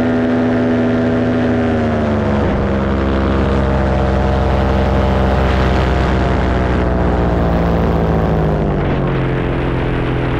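Paramotor engine and propeller running steadily in flight. The engine note steps down in pitch about two seconds in and again near the end.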